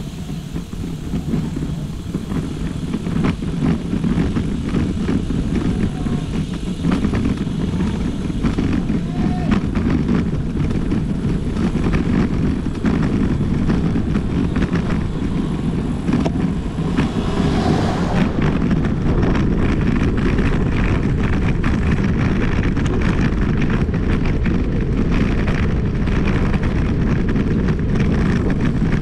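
Wind buffeting the microphone of a camera riding on a moving bicycle, a steady low rumble, with frequent small knocks and rattles from the bike going over the road.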